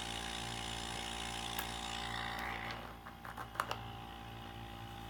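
Salvaged refrigerator compressor running as an air compressor: a steady hum with a hiss of air being drawn in at the intake. About three seconds in the hiss quietens, with a few small clicks and rustles, as a cut-off balloon is fitted over the foam intake filter to muffle it.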